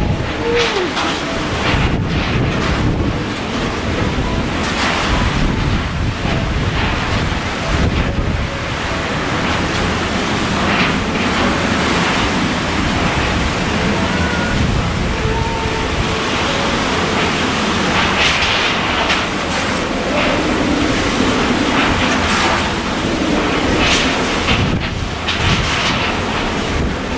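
Typhoon wind blowing hard and buffeting the microphone, a steady rush that surges in stronger gusts about two-thirds of the way through and again near the end.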